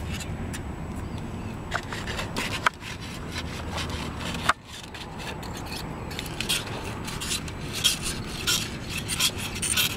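Fillet knife scraping and cutting along the back of a small trout laid on crinkling aluminium foil, with irregular scratchy rubs and small clicks.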